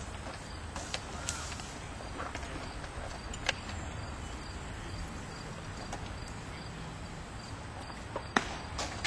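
Steady open-air noise with low wind rumble, broken by two sharp smacks of a baseball striking a leather glove: a faint one about three and a half seconds in and a loud one near the end.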